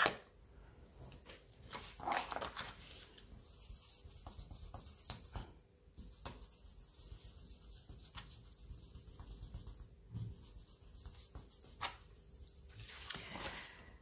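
Faint rustling and rubbing of paper and card being handled on a craft mat, with a few small scattered taps and clicks. The rustle is a little louder about two seconds in and again near the end.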